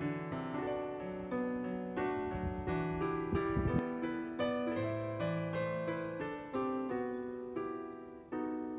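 Background piano music: a gentle run of notes over chords, each note struck and fading away.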